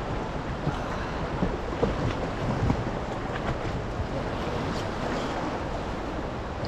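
Steady rush of river water around a raft on fast-flowing water, with wind buffeting the microphone.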